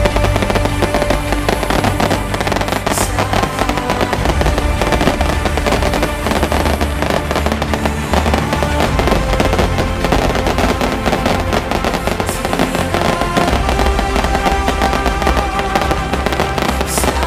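Firecrackers and fireworks crackling continuously and loudly, with music playing throughout.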